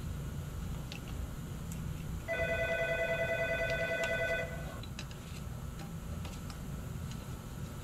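A telephone ringing once, a steady multi-toned ring about two seconds long, starting a little over two seconds in, over a low steady hum with a few faint metal clicks.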